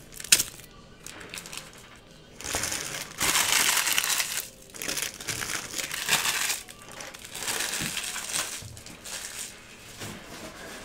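Clear plastic wrapper of a trading-card pack crinkling and crumpling in the hands, in several bursts of a second or two each. A sharp click comes about a third of a second in.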